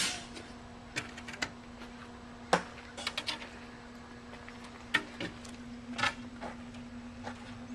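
Scattered light clicks and knocks from the tank and its parts being handled, a few of them in quick clusters, over a steady low hum.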